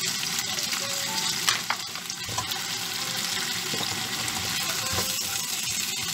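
Chunks of potato, carrot, bell pepper and green peas sizzling in hot oil in a frying pan as they are stirred, a steady hiss with a couple of sharp clicks about a second and a half in.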